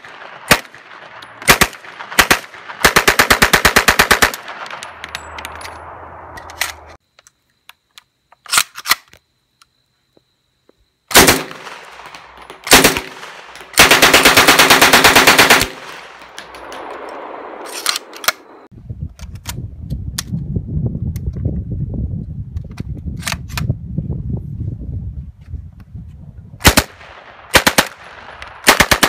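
A WWII German MP-40 submachine gun, made in 1943 and chambered in 9mm, firing outdoors. Single shots alternate with three long full-auto bursts of rapid, evenly spaced shots. Between them come quiet gaps and a stretch of low rumbling noise.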